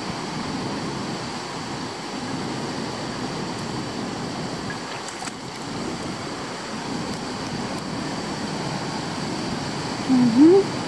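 Steady rush of a shallow river running over stones and a weir, with some wind on the microphone. Near the end a person's voice gives one short rising exclamation.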